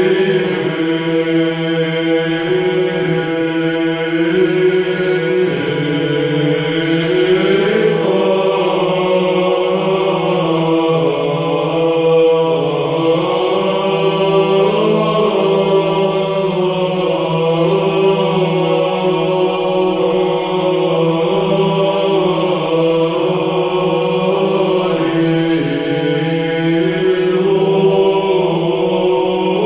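Orthodox church chant used as background music: voices singing slow, long-held lines over a steady low held note.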